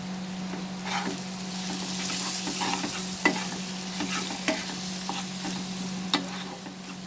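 Chopped tomatoes and ground spices sizzling in hot oil in a pan while a spatula stirs them, knocking against the pan now and then. The sizzle swells about a second in.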